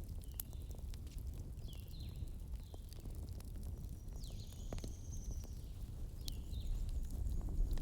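Wood bonfire crackling, with scattered sharp pops over a low rumble of burning. A few short, high chirps and a thin high whistle about four to five seconds in sound over the fire.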